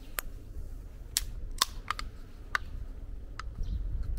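Pull-tab of a small Georgia Emerald Mountain Blend coffee can being worked open: about six sharp clicks and snaps as the tab is lifted and the lid breaks, over a steady low rumble.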